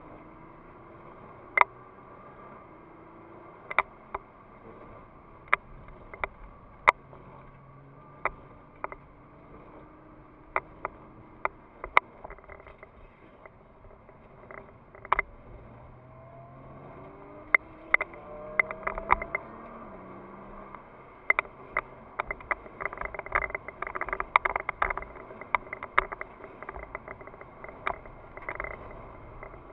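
Nissan GT-R's twin-turbo V6 engine heard from inside the cabin, its pitch rising and falling with speed and climbing under acceleration past the middle. Sharp, irregular clicks and knocks sound throughout, thickest in the second half.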